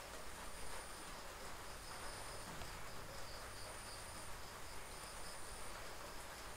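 Faint high-pitched insect trilling, coming in repeated pulses a second or so long, over a faint low hum.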